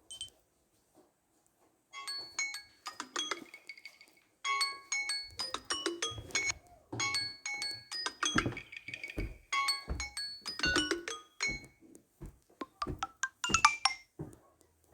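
A Samsung Galaxy S10 ringtone: a bright, quick melody of short keyboard-like notes over low bass thumps, starting about two seconds in, with a run of notes near the end.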